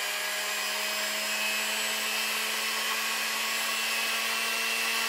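Electric hand mixer running steadily at one speed, its beaters churning a crumbly peanut butter, sugar and egg mixture in a stainless steel bowl.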